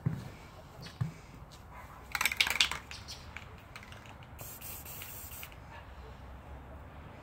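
Aerosol spray-paint can hissing in one short burst of about a second, a little past halfway through. Before it comes a brief clattering rattle, the loudest sound, and a couple of low knocks at the start.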